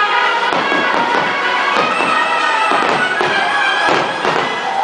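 Fireworks show music with held tones, and fireworks bursting and crackling over it several times.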